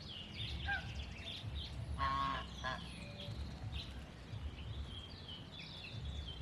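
Birds calling: scattered short calls and chirps, with a longer pitched call about two seconds in, over a low steady background rumble.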